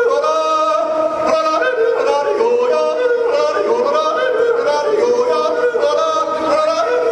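A man yodeling in Swiss style into a handheld microphone, his voice jumping back and forth between low and high notes without a break.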